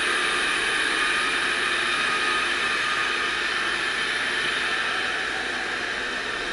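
Robot vacuum cleaner running: a steady whirring hiss of its suction fan and brushes, easing off a little near the end.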